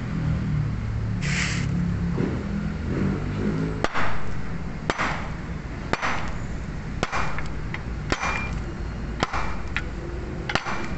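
Sharp knocks struck through a piece of wood, about one a second, seven blows each with a short ring, driving a new oil seal into a steering rack until it seats fully.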